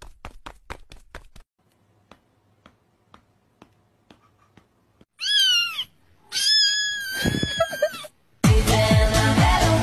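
Rapid clicking, about six a second, that stops after a second and a half, then a few faint ticks. A cat meows twice, a short call and then a longer one with a wavering pitch. Loud music with a heavy bass beat cuts in about a second and a half before the end.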